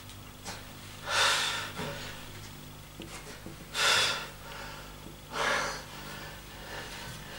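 A man breathing hard from the exertion of a set of barbell triceps exercises: three heavy breaths a couple of seconds apart.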